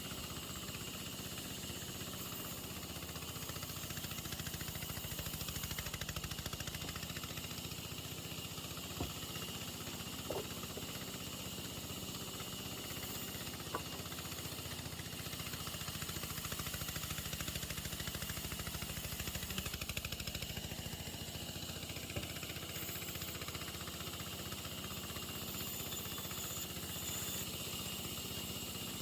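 A machine running steadily with a low hum, with three faint clicks near the middle.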